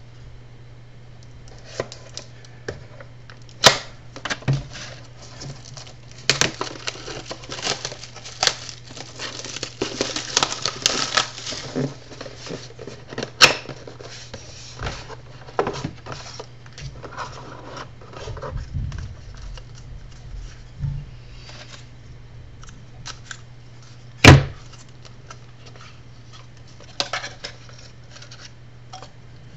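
A sealed box of trading cards being opened by hand: tearing and crinkling of the wrapper and packaging, handling of cardboard, and scattered sharp knocks, the loudest about 24 seconds in. A low steady hum runs underneath.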